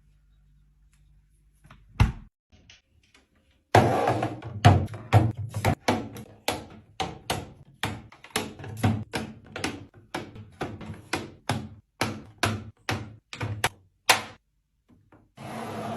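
Hard containers and items being set down and arranged, clicking and knocking about twice a second for roughly ten seconds, as in fridge restocking.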